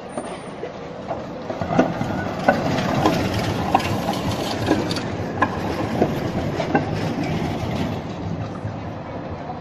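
Simmering-Graz-Pauker articulated tram passing close by, its wheels clacking over rail joints about every two-thirds of a second. The running noise builds about a second and a half in and fades near the end.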